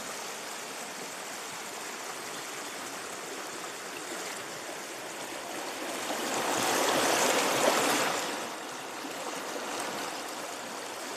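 Shallow mountain river rushing over stones and pebbles, a steady noisy rush of water heard close to the surface of a riffle. It swells louder for a couple of seconds a little past the middle, then settles back.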